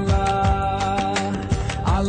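Background music with a steady beat and held melodic tones.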